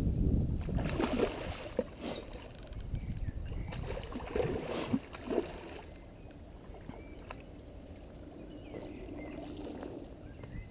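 A hooked ghost carp splashing and thrashing at the surface of the water, in several irregular splashes over the first half. A low rumble runs underneath.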